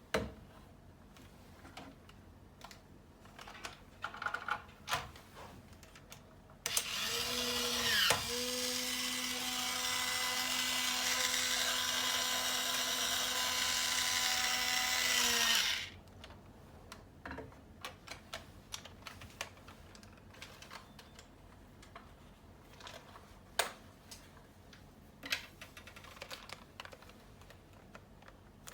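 Small parts of a model excavator kit clicking and tapping as they are handled. A small electric motor runs steadily for about nine seconds in the middle, with a brief dip in pitch just after it starts.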